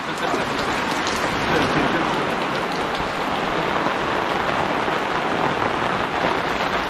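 Heavy downpour: rain pouring down steadily onto surfaces.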